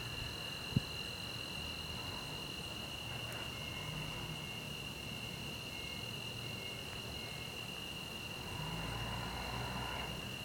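Steady, high-pitched chorus of night insects such as crickets, holding an unbroken trill. A single click comes about a second in, and a faint low rumble rises near the end.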